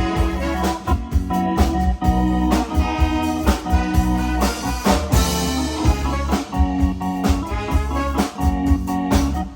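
Instrumental music with organ and drum kit, in a jazzy swing style, playing with a steady beat.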